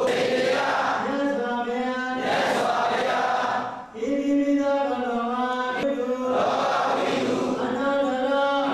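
A group of Buddhist monks, nuns and lay devotees chanting together in unison, long held notes in phrases, with a brief break for breath about four seconds in.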